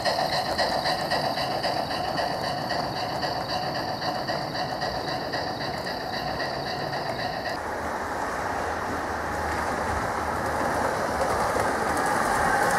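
Gauge 1 model trains running on track. A model steam locomotive hauling freight wagons gives a steady whine from its motor and gears. About seven and a half seconds in this changes abruptly to the rolling noise of model train wheels on the rails, growing louder as a model diesel railcar approaches.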